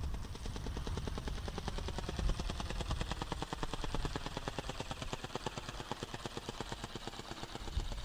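Go Go Bird remote-control flapping-wing bird clattering overhead, its wings beating in a fast, steady chop of about ten beats a second. Wind rumbles on the microphone underneath.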